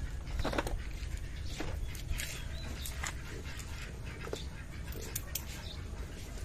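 Metal hand tools clicking and clinking in a plastic toolbox as a socket wrench is picked out, a scattering of short, sharp clicks over a steady low rumble.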